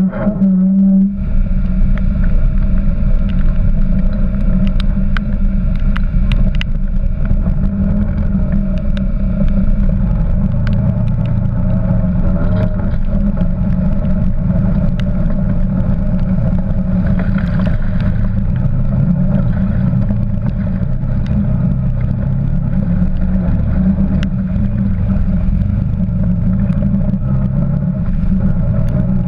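Quad bike (ATV) engine running steadily under load, heard up close from the riding machine, with water splashing as it drives through puddles and a stream. Scattered sharp clicks and knocks are heard over the engine, and there is a brief dip about a second in.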